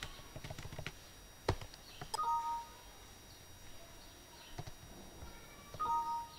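Windows 7 message-box chime, a two-note ding sounding twice about three and a half seconds apart, signalling an 'invalid value' error dialog. A few sharp keyboard and mouse clicks come before the first chime.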